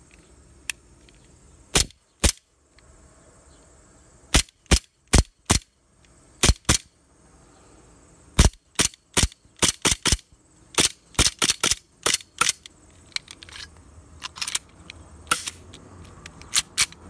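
Airsoft pistol firing repeatedly: dozens of sharp pops, some single and some in quick runs of several shots.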